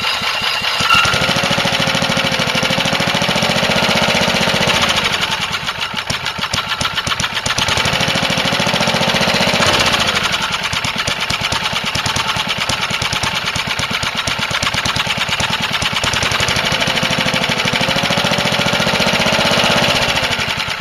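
A 1981 lawnmower's small engine running with no gasoline, fed only by raw gas from a hand torch held at the air intake; its speed rises and sags unevenly because the torch cannot supply enough fuel for full throttle. Near the end it dies away as the torch is pulled off and the engine stalls.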